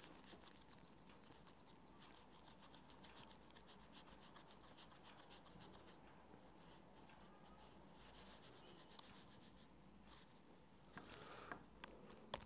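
Faint scratching and tapping on a phone touchscreen as written notes are rubbed out with the eraser tool, with a few slightly louder taps near the end; otherwise near silence.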